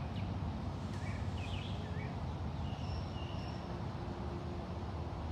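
Outdoor background: a steady low rumble with a few faint, short bird chirps and whistles in the first half.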